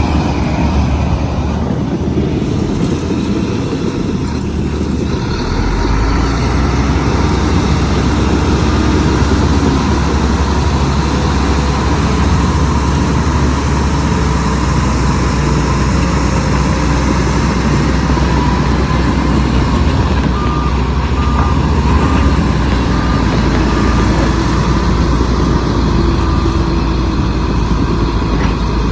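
Heavy diesel construction machinery running with a deep, steady engine rumble that gets louder a few seconds in. Through the second half a reversing alarm beeps at an even pace.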